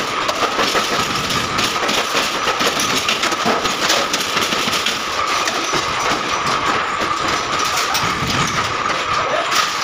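Factory machine noise: a pedestal spot welder clamping and firing on a stainless-steel gas-stove body, among irregular sharp clicks and snaps over a steady high whine.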